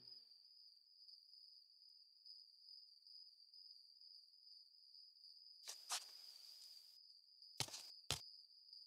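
Faint, steady high-pitched insect trill throughout. A soft rustle comes about six seconds in, and two sharp taps follow near the end.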